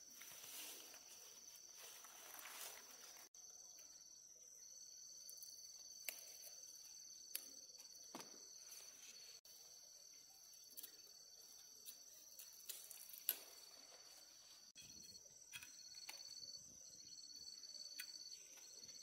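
Faint, steady high-pitched insect chirring, with a second pulsing trill joining about 15 seconds in and a few scattered light ticks.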